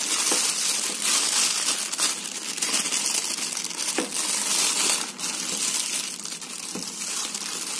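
Clear plastic bag and bubble wrap crinkling and rustling continuously as they are gripped and lifted out of a cardboard box, full of small crackles.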